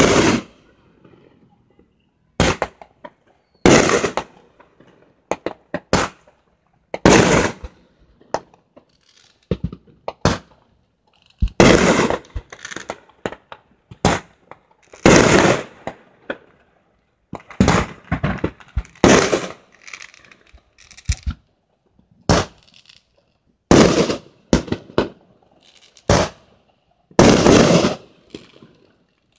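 Fireworks going off: an uneven series of loud bangs and crackling bursts, one every second or two, some in quick clusters.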